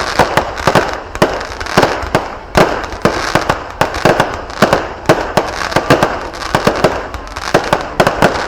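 Fireworks going off in a dense, continuous barrage: many sharp bangs a second over a steady crackle.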